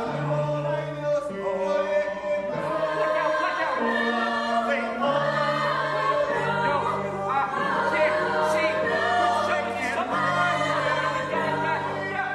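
Musical-theatre ensemble singing together in chorus over band accompaniment with held bass notes.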